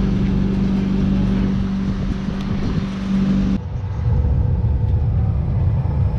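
Steady drone of a parked regional jet and its ground equipment on the airport apron: a strong low hum with hiss over it. A little past halfway it cuts abruptly to the duller, lower rumble inside the airliner cabin.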